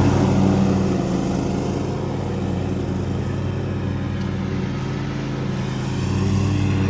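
Lawnmower engine running steadily, a little louder at the start and again near the end.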